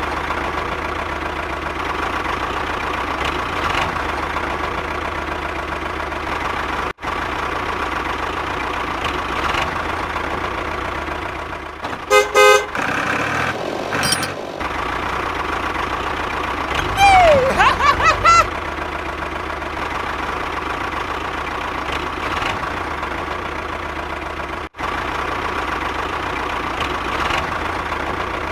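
Steady engine-like running of an RC model tractor, with a short run of horn toots about twelve seconds in and a tone that slides down and then up a few seconds later.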